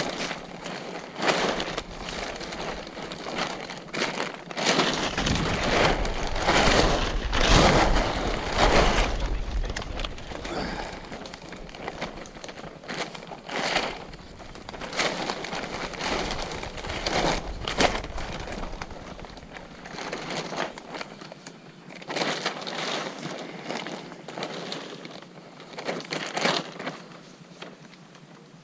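A camouflage tarp being unfolded and handled, its fabric rustling and crinkling in irregular bursts, loudest a few seconds in.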